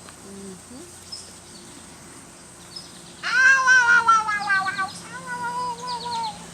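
A young puppy whining: a loud, high, drawn-out cry about three seconds in that slides down in pitch, then a fainter second whine about five seconds in.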